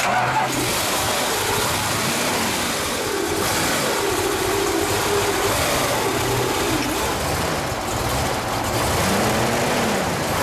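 A 426 Hemi V8 in a 1971 Plymouth Hemi 'Cuda catches suddenly and runs loud, its pitch rising and falling. A small noise is heard with the clutch pedal held down, which the owner takes to be probably the clutch throwout bearing.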